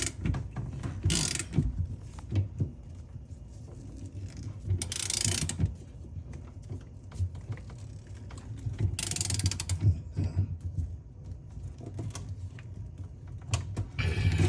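Ratchet wrench clicking as it drives a pipe plug socket, tightening a taped 3/4-inch pipe plug into a threaded fitting, in several short runs with pauses between them.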